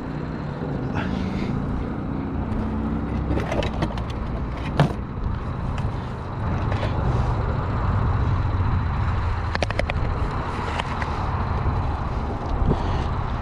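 Boat motor running steadily with a low hum, with a few sharp clicks and knocks from handling gear in the boat.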